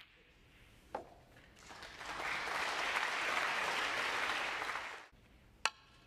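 Snooker audience applauding for about three seconds, swelling in and dying away, between sharp clicks of snooker balls about a second in and near the end.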